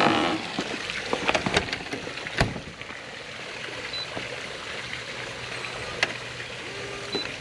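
Newly fitted electronic keypad and fingerprint door lock and handle being worked: several sharp clicks from the latch and handle, with a couple of short high beeps from the lock, about four seconds in and near the end, over a steady background hiss.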